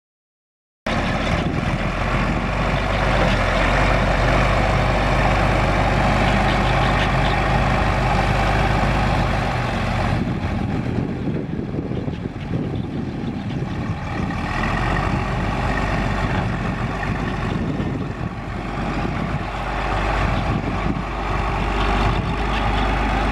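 John Deere six-cylinder diesel engine of a 1974 John Deere 4630 tractor, running steadily. It starts about a second in.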